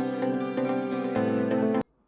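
Background music with a steady beat that cuts off abruptly near the end.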